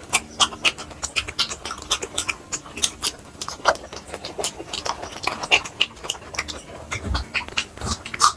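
Close-miked eating: chewing and lip-smacking mouth sounds, a dense run of short, irregular wet clicks.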